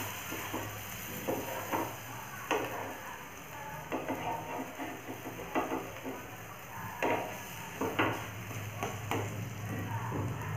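Buttered paratha sizzling on a hot frying pan, with a wooden spatula pressing and scraping it in a dozen or so irregular strokes.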